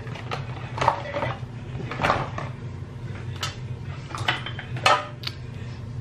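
Several sharp clicks and knocks of small hard objects being handled, at uneven intervals, over a steady low hum.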